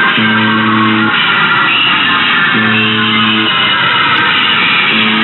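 A buzzer making a harsh, distorted, crackly noise, with a low buzzing tone that pulses on for about a second roughly every two and a half seconds, three times.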